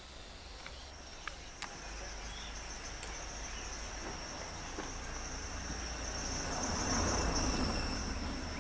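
Insects trilling: a steady, high, thin sound that comes in about a second in and grows louder later on. Under it is a low rumble, with a swell of noise around seven seconds in and a few faint clicks.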